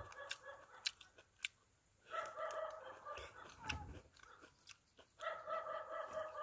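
Two drawn-out animal calls, each about a second long and about three seconds apart, of the kind a dog gives. Between them come small sharp clicks and smacks of a mandarin being peeled and eaten.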